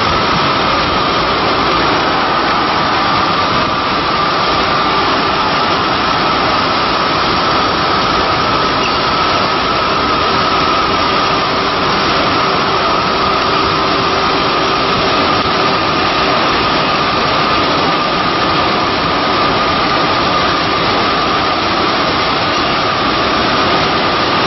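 Cincinnati Milacron Model AM CNC router profiler running: a loud, steady rushing noise with a constant high whine over it.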